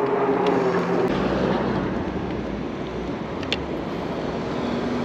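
Road traffic and the rush of wind and tyre noise heard from a moving e-bike. A steady hum fades out about a second in, and there is a single sharp click about three and a half seconds in.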